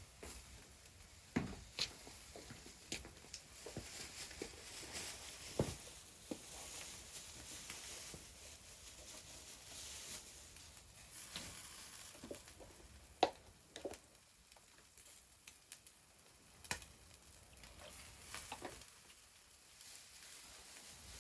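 Scattered light knocks and clicks, a few sharper than the rest and the loudest about two thirds of the way through, over a faint steady hiss.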